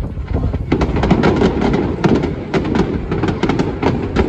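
Fireworks display: a rapid, continuous barrage of bangs and crackles from many shells bursting together, growing denser and louder under a steady rumble about a second in.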